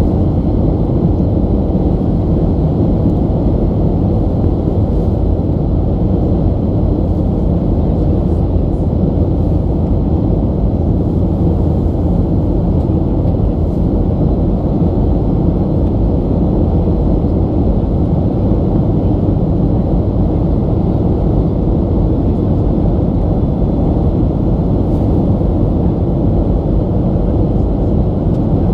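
Steady low cabin drone inside a Boeing 737 airliner, the engines and airflow heard as an even rumble that holds constant throughout.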